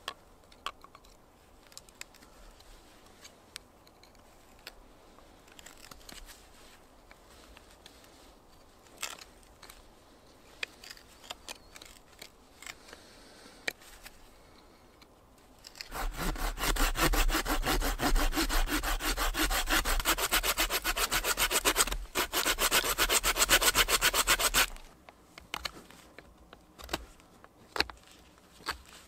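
Mora carving knife whittling green wood, with quiet scattered cuts and scrapes. About sixteen seconds in, a loud, fast, steady rasp of wood being sawn starts, breaks briefly once, and stops after about nine seconds; then the quiet knife cuts return.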